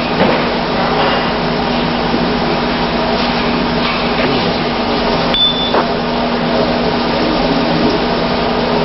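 Steady hum with hiss and no clear event, with a short high beep about five seconds in.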